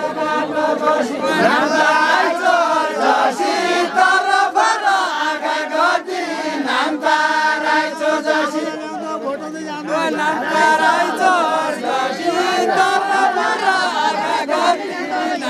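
A group of voices singing a Deuda, the folk song-dance of far-western Nepal, in chorus without instruments. Many voices overlap on long held notes.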